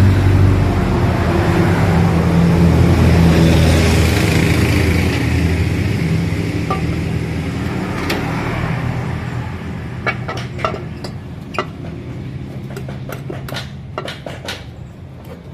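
A motor vehicle engine drones steadily, loudest in the first few seconds and fading away by about ten seconds in. Then come a series of sharp metallic clinks and clicks of tools and parts being handled.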